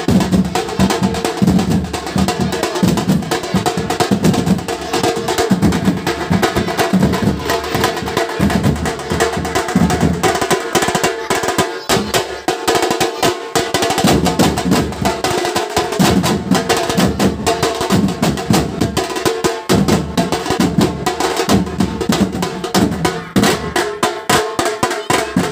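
Nasik dhol band: several large steel-shelled Nasik dhols beaten with sticks together with smaller drums played in rapid rolls, making loud, dense, unbroken drumming.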